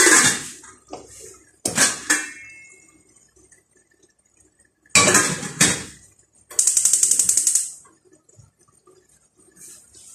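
Metal cookware clattering: several sharp knocks of pot and lid, then a quick high rattle for about a second.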